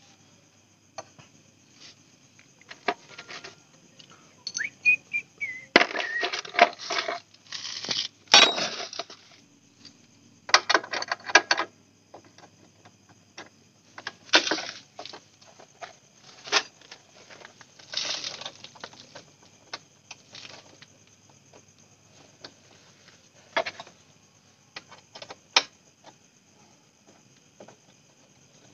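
Metal clinks and rattles from a motorcycle's racing footrest bracket, bolts and an Allen key being handled and fitted, coming in irregular bursts, some of them runs of quick clicks.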